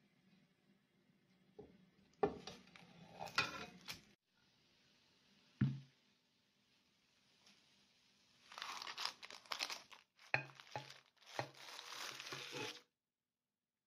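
Baking parchment crinkling and rustling in bursts as an omelette cooked on it is handled and turned out of a frying pan onto a plate. A single sharp knock comes about five and a half seconds in, and a few light knocks sound among the crinkling near the end.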